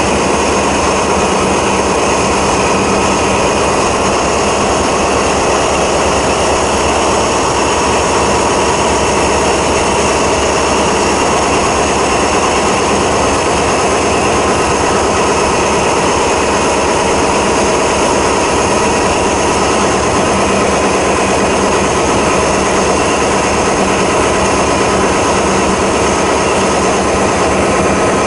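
SNCF BB 67400-class diesel-electric locomotive standing with its diesel engine running, a loud steady drone with a steady high whine over it.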